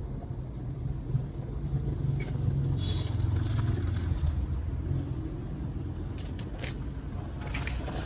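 A low rumble that swells for a few seconds in the middle and then eases off, with a few faint clicks near the end.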